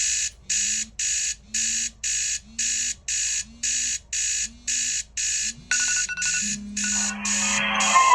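Phone alarm clocks going off: a loud, high-pitched electronic beeping about twice a second, with a low buzz about once a second beneath it. About six seconds in, a second, melodic alarm tone joins the beeping.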